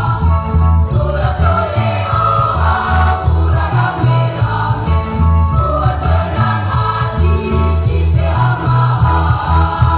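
A school choir singing over loud amplified accompaniment with a deep bass line that shifts note every half second or so.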